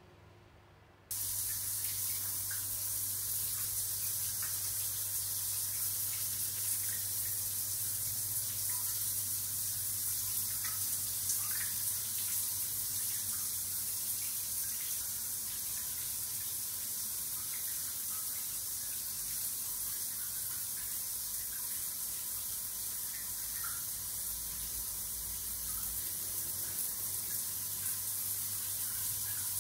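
Handheld shower head spraying a steady stream of water in a tiled shower stall, starting abruptly about a second in.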